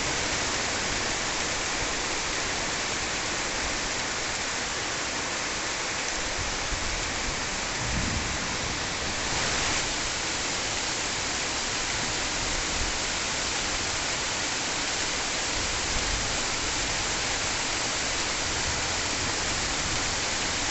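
Heavy pre-monsoon rain pouring steadily onto trees, foliage and ground.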